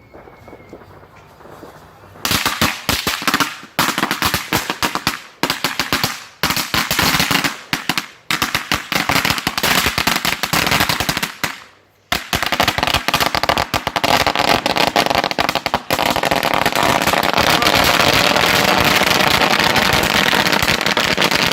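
About 10,000 firecrackers going off inside a barrel: after a quiet first two seconds, a dense, rapid run of loud bangs with a few brief lulls, merging into one continuous crackle in the last few seconds.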